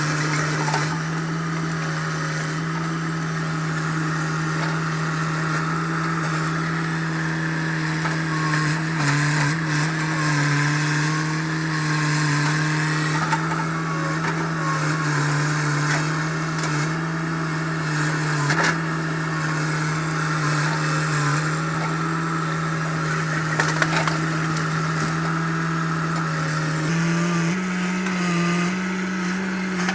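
Hitachi EX100 excavator's diesel engine running steadily under hydraulic work, its pitch dipping briefly under load and rising slightly near the end, with a few sharp knocks or cracks around the middle.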